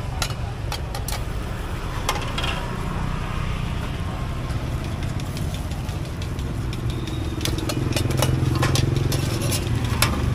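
Steady low rumble of motor traffic, with a motorcycle engine running louder for a couple of seconds near the end. Sharp clicks of a metal spatula tapping and scraping a small wok come through on top.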